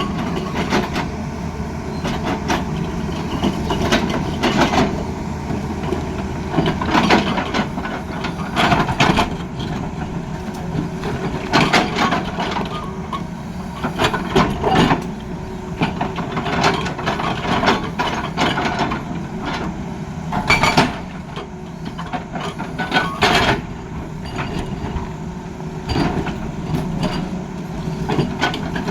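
Tata Hitachi excavator at work: its diesel engine runs steadily under a low hum, with irregular knocks and clanks every second or so.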